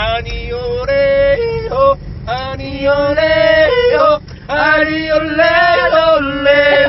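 Male voice yodeling in short held phrases, flipping back and forth between a low chest-voice note and a high head-voice note. Brief breaks come about two and about four seconds in.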